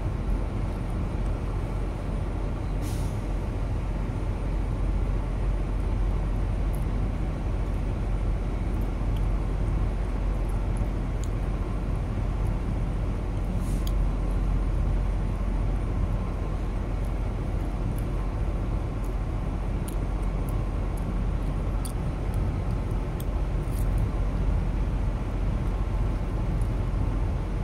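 Steady low rumble of an idling diesel truck engine, with a couple of brief faint hisses.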